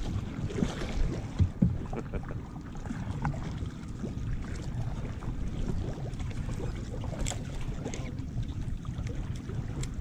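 Wind buffeting the microphone and water sloshing against a small outrigger boat's hull as a handline is hauled in. There are a few sharp knocks about a second to a second and a half in.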